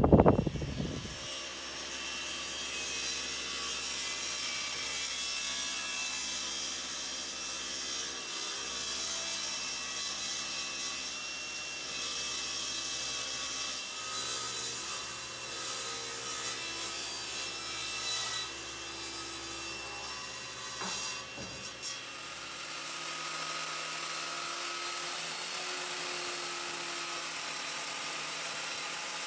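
A sharp knock at the start, then power saws cutting walnut: a SawStop table saw running and ripping a board, and from about 22 s in a handheld circular saw cutting through a glued-up walnut panel.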